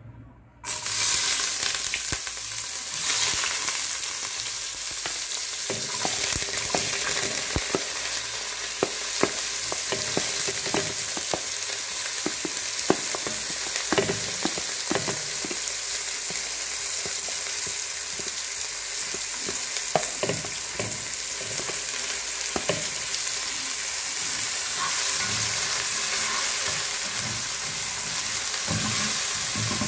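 Sliced red onions sizzling in hot cooking oil in a pot. The frying starts suddenly about half a second in and carries on as a steady hiss, with clicks and scrapes of utensils against the pot and chopping board.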